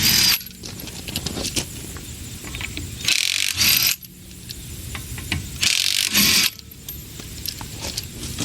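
Impact wrench running in three short bursts, about three seconds apart, loosening wheel lug nuts.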